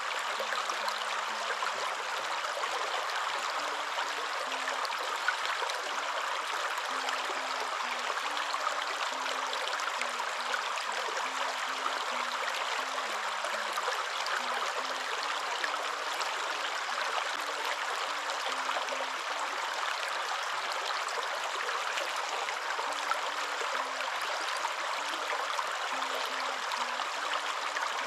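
Waterfall rushing steadily: a dense, even hiss of falling water that stays at the same level throughout.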